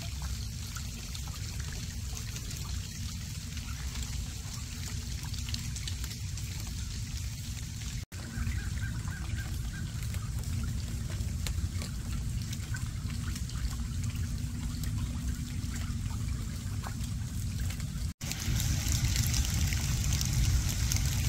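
Steady rain falling and dripping onto a swamp lake and wet ground, with scattered fine drop ticks over a low rumble. It is broken by two brief dropouts, about 8 and 18 seconds in, and is a little louder after the second.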